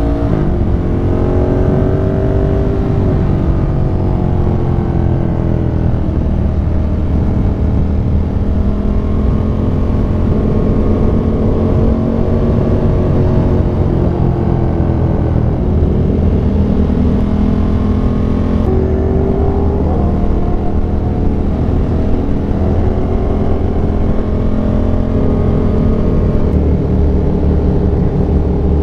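Yamaha R1M's crossplane inline-four engine running under way. Its pitch drops sharply at the start, then rises and falls in slow sweeps as the throttle opens and closes.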